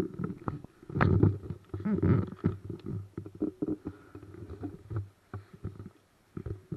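Irregular low rumbling, rustling and knocking as a camera is jostled and moved over dry leaf litter.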